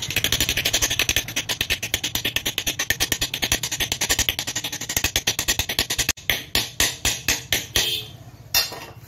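Hammer tapping a new ball bearing into its seat in a ceiling fan's metal end cover, in rapid, even metal-on-metal blows. About six seconds in the blows slow to a few a second and grow fainter.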